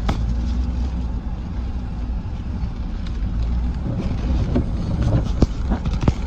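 Vehicle driving: a steady low rumble, with scattered knocks and rattles from about four seconds in.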